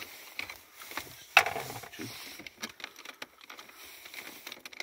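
Plastic centre-console trim of an Opel Insignia being pulled against its retaining clips. There are scattered clicks and creaks, and one sharp snap about a second and a half in.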